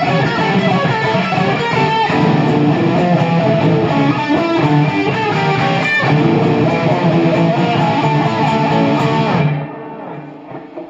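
Guitar music with plucked and strummed notes, which stops abruptly near the end and leaves a much quieter tail.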